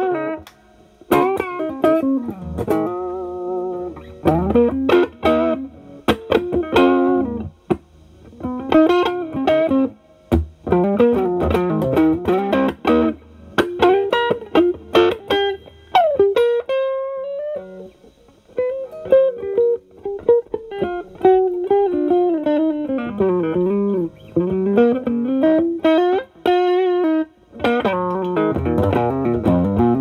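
Overdriven electric guitar lead: an SG with Alnico humbuckers through an Ibanez TS9DX Turbo Tube Screamer in HOT mode into a Marshall Valvestate clean channel. It plays single-note phrases with string bends and vibrato, with a held note reached by a rising bend about halfway through.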